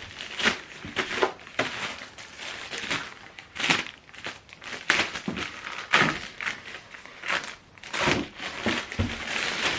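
Packaging crinkling and rustling in irregular bursts as it is handled and pulled away from a newly unboxed speaker.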